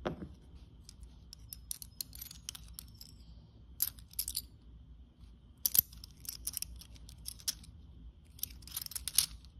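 Kennedy half dollars clinking and clicking against each other as a stack of them is thumbed through in the hand: a scattered run of light metallic clicks, the sharpest one about six seconds in.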